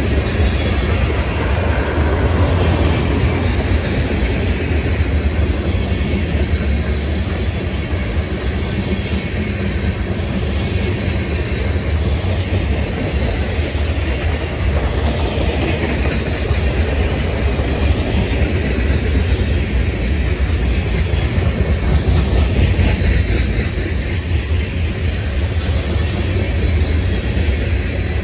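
Freight cars of a long mixed manifest train rolling slowly past: a steady rumble of steel wheels on rail with clickety-clack wheel clatter.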